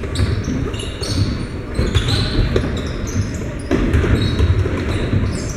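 Basketball being dribbled on a hardwood gym floor during live play, amid the general noise of players and spectators in a large gym.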